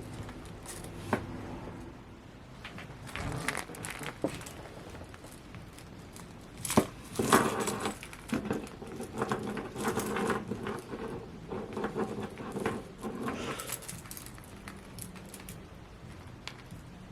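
Hands handling a Funko Pocket Pop vinyl keychain figure and its packaging: scattered clicks and taps and bursts of rustling, busiest and loudest about seven seconds in.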